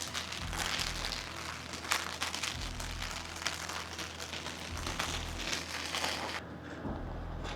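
Rain falling in a steady crackling patter, over a low hum; the patter cuts off abruptly near the end.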